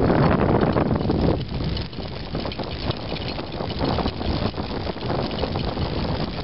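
Scooter wheels rolling and rattling with wind buffeting the microphone as a husky pulls the scooter along. The wind is heaviest for about the first second and a half, then eases.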